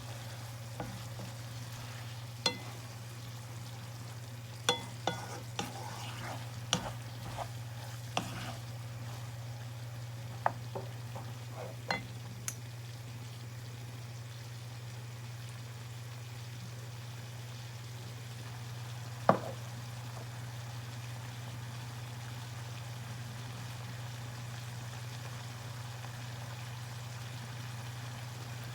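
Beef mince cooking in a pan while a spoon stirs it, knocking against the pan a dozen or so times in the first half, with one louder knock about two-thirds of the way through. A steady low hum runs underneath.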